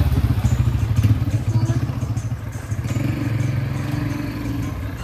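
Motorcycle engine running close by with a rapid low pulsing, loudest at first and growing quieter as the bike moves off.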